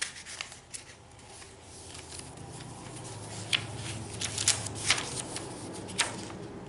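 Paper pages of a handmade junk journal being turned and handled: rustling with several sharp crinkles and taps, busiest in the second half.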